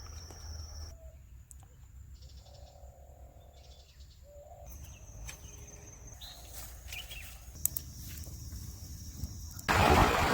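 Faint bird chirps and calls over a low steady rumble, changing abruptly several times. About nine and a half seconds in, it cuts suddenly to a loud rushing noise.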